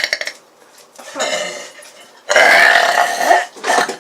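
Loud burping: the end of one long burp right at the start, a shorter, quieter burp about a second in, then a long, loud burp of about a second starting past halfway, with a short one just after it.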